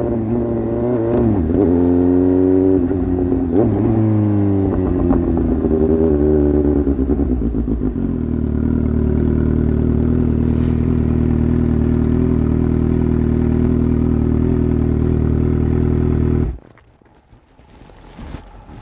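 Suzuki GSX-S750's inline-four engine through an exhaust with the dB killer removed: the engine note dips and rises twice in the first five seconds, then settles into a steady idle. The sound stops abruptly about sixteen and a half seconds in.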